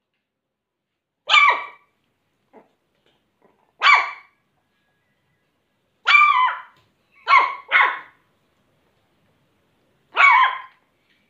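Young Shih Tzu puppy barking: six short barks spaced a second or two apart, two of them in quick succession just past the middle.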